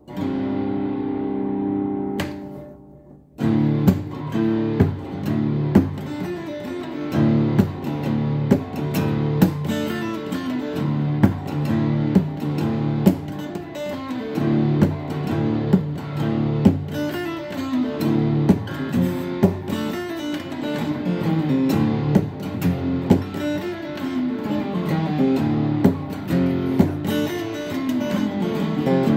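Steel-string acoustic guitar played solo: a chord is strummed and left to ring, then cut off about three seconds in. It goes into a steady picked pattern of chords and single notes with a regular pulse.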